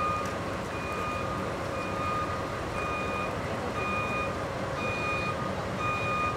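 Movement warning beeper of a small rail shunting vehicle as it moves a railcar: a high electronic beep repeating about once a second, each about half a second long, over steady background noise.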